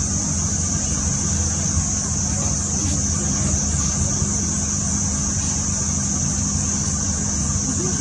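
Safari vehicle engine idling with a steady low hum, under a constant high-pitched drone.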